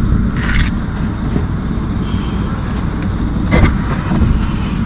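Steady low rumble with a brief rustle near the start and a single knock about three and a half seconds in.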